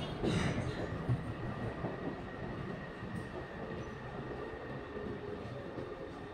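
Taipei Metro train heard from inside the passenger car: a steady running rumble with a faint high whine, easing off in loudness as the train slows into a station.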